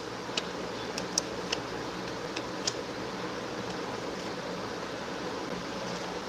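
Steady background hiss of room noise with a faint low hum, broken by a few small clicks in the first three seconds.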